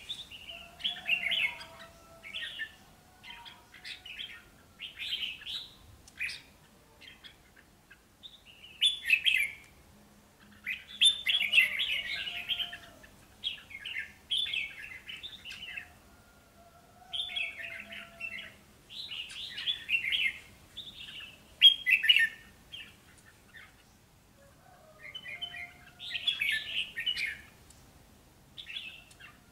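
Two caged red-whiskered bulbuls counter-singing. They trade short, bright chirping phrases every second or so, with brief pauses between bursts.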